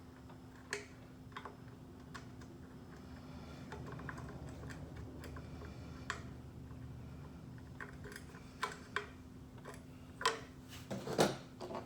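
Light, irregular clicks and taps of small metal hardware and an adjustable wrench being handled while bolting bracket parts onto a bench grinder, with a couple of louder knocks near the end. A faint steady hum runs underneath.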